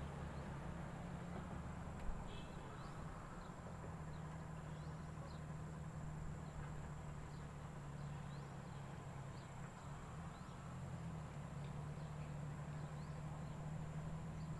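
Outdoor ambience: a steady low hum with faint high chirps repeating throughout, and a single sharp click about two seconds in.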